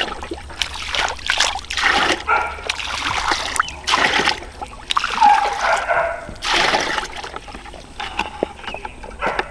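Pond water being scooped with a plastic dipper and poured into a plastic bucket, splashing and pouring in repeated bursts about once a second.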